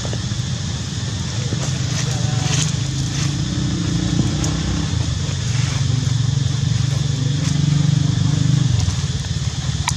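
A motor vehicle engine running steadily with a low hum, louder in the second half and dropping away near the end.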